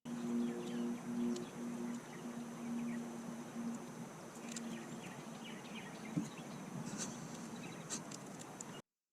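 Outdoor background: small birds chirping now and then over a steady high insect-like whine, with a low steady hum in the first few seconds. Scattered light clicks and taps come in the second half.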